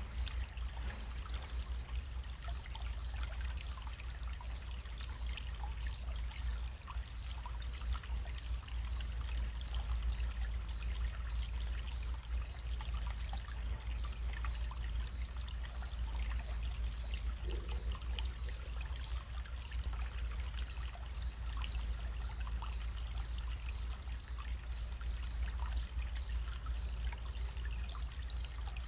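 Small running stream trickling and babbling: a steady flow of many small, irregular splashes and drips, over a steady low rumble.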